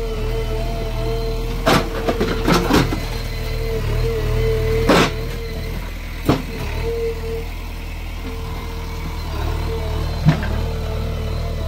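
JCB 3DX backhoe loader's diesel engine running steadily, with a thin steady tone above it and about half a dozen sharp knocks spread through.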